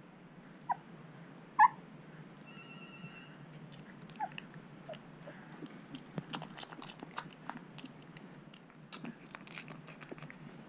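Young Shar Pei puppies squeaking, two short high squeaks in the first two seconds and two fainter ones about four and five seconds in, then the wet clicking and smacking of puppies suckling at their mother from about six seconds on.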